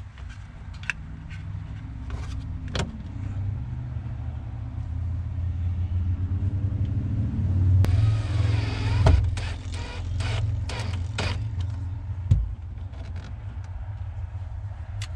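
Cordless drill/driver running briefly, whining up and down in pitch as it drives the mounting screws of a plastic LED cabin light into the overhead. Handling clicks and knocks come before and after, over a steady low rumble.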